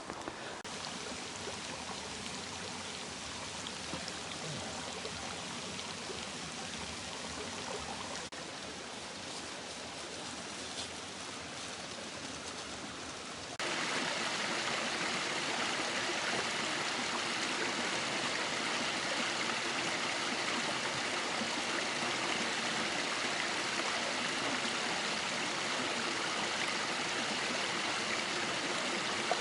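River water flowing, a steady rushing with no other events, which jumps louder a little under halfway through.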